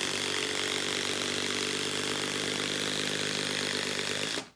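Hilti SID 4-A22 cordless impact driver hammering steadily as it drives an 8-inch lag screw into a log round. It cuts off suddenly near the end, when the screw is driven home.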